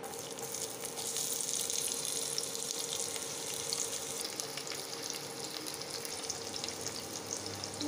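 Sliced onions dropped into hot oil and ghee in a stainless steel pressure cooker, sizzling with a steady crackling hiss.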